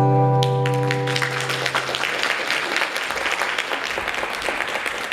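The final held chord of a song dies away over the first couple of seconds as an audience breaks into applause, which carries on.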